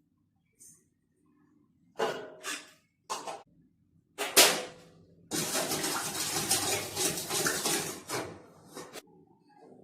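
A few short knocks and clatters of kitchen utensils, then liquid pouring steadily into a bowl for about four seconds before stopping suddenly.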